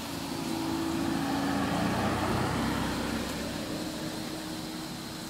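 A motor vehicle passing on the road, its engine sound swelling to a peak about two seconds in and then fading away.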